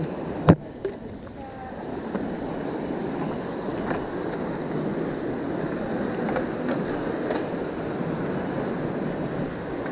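Steady rush of a rocky stream and small waterfall, with a sharp click about half a second in.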